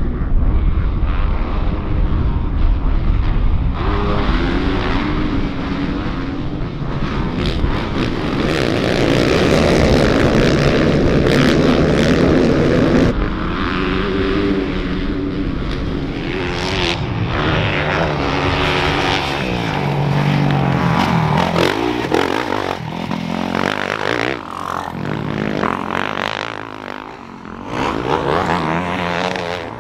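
450-class racing dirt bikes at full throttle, several engines at once, revving up and down in pitch as the riders shift and ease off; the sound swells as a pack passes, then comes in shorter rises and drops.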